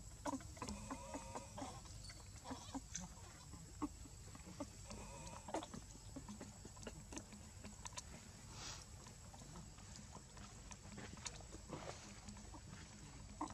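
A baby monkey crying in a series of short calls during the first six seconds, among scattered faint clicks.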